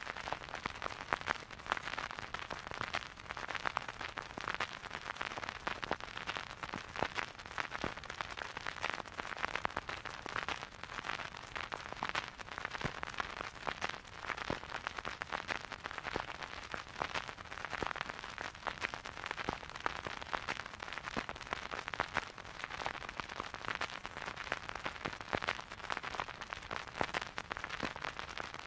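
Vinyl record surface noise as the stylus tracks the groove: a steady hiss with many small crackles and pops scattered throughout, and no music playing.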